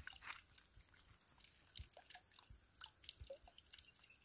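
Near silence: faint scattered ticks and crackles over a thin, faint, steady high-pitched whine.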